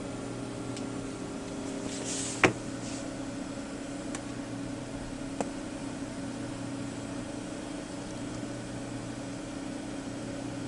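Steady low hum with a few faint clicks, and one sharp click about two and a half seconds in.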